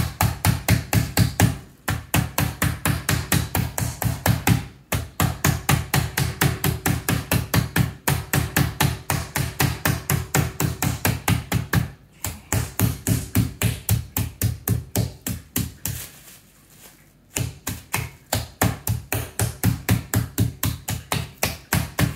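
Metal meat mallet's smooth face pounding raw chicken breasts through plastic cling wrap on a cutting board, flattening them thin. Rapid blows, about five a second, come in runs broken by short pauses.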